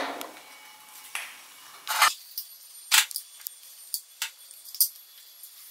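Spoon scooping ghee and tapping against its container and a small nonstick pan: a string of separate light taps and clicks, the sharpest about two and three seconds in.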